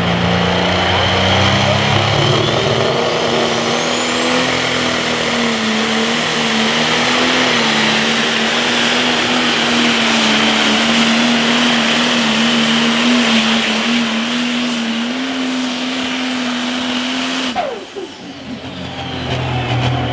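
Turbocharged diesel engine of a Pro Stock pulling tractor running at full power down the track. A high turbo whine rises to a steady whistle a few seconds in. Near the end the throttle is chopped and the engine drops off sharply.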